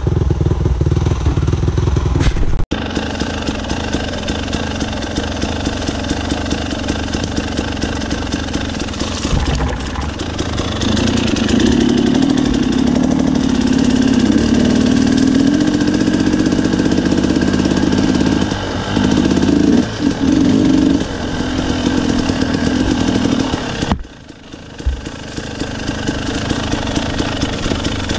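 Dirt bike engine idling with a steady low beat at first. After a sudden break about two and a half seconds in, it runs under load as the bike is ridden up a narrow trail, the revs rising and falling with the throttle, with a brief drop in revs near the end.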